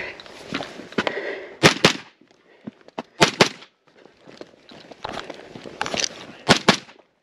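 Gunshots fired in quick pairs: three double taps, the first about a second and a half in, the second just after three seconds, the third near the end.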